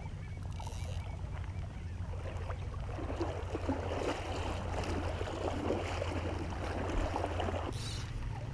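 Legs in chest waders moving through shallow water: a splashing, swishing wash of water from about three seconds in until shortly before the end, over a steady low rumble.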